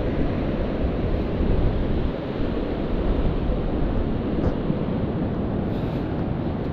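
Steady rumbling wind noise on the microphone, mixed with the wash of surf.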